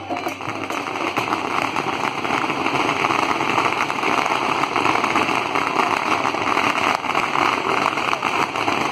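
A long string of firecrackers going off in a rapid, continuous crackle of pops, getting louder over the first few seconds and then holding steady.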